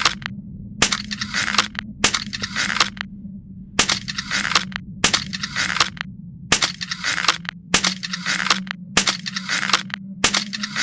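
Hussite crossbow sound effect: a series of about nine short noisy bursts, each about half a second long and starting with a sharp click, over a steady low hum.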